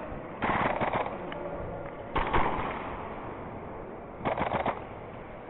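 Airsoft gun fired in three short rapid bursts, about half a second each, spaced roughly two seconds apart.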